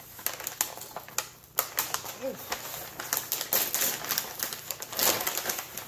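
Gift wrapping paper being torn open by hand and tissue paper rustled, an irregular run of crackles and crinkles, with a sharp tear about a second and a half in and a louder stretch near the end.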